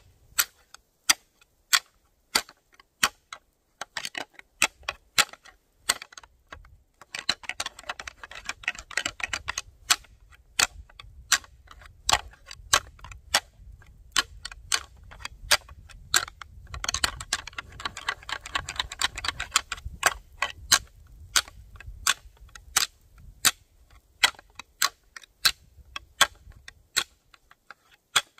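A pair of deer antlers rattled together as a buck call: sharp clacks about two a second, breaking into fast grinding clatter twice, a quarter of the way in and again just past halfway, mimicking two bucks fighting to draw in a territorial buck.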